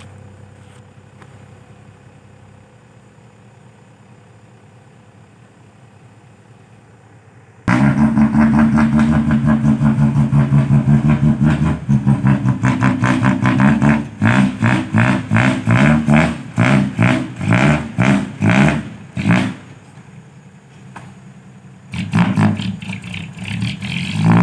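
Six-wheel dump truck's diesel engine, first a low idle hum, then about eight seconds in it suddenly revs hard in loud, rapidly pulsing bursts that come and go as the truck pulls through loose sand, with a short lull and another burst near the end.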